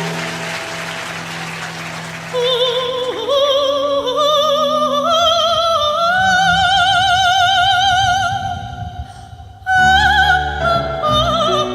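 A female soprano sings long, slowly climbing notes with a wide vibrato over a held low accompaniment note. A dip in the level follows, then about ten seconds in a fuller accompaniment comes in loudly with a low beat under the voice.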